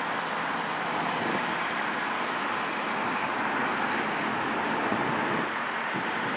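Steady, even hiss of rain falling during a thunderstorm.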